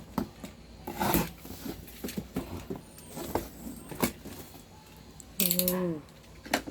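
Handling noise while unboxing a Bluetooth speaker: scattered clicks, knocks and rustles of packaging and parts. About five and a half seconds in, a short pitched tone is held for about half a second.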